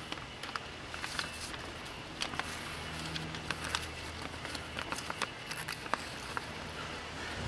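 Paper rustling as a printed instruction manual's pages are turned and the booklets and papers are handled, in many small scattered crinkles and ticks, with a faint low hum underneath.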